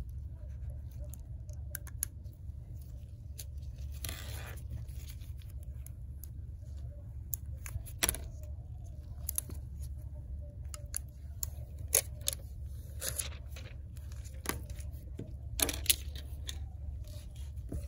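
Small handling sounds of phone screen parts: scattered clicks and taps of the screen and a metal pry tool on the work surface, with a short rustle of protective plastic film being peeled about four seconds in, over a steady low hum.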